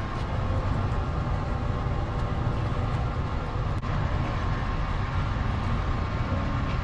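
Heating unit's blower motor running with a steady rumble and hum while the unit cools off.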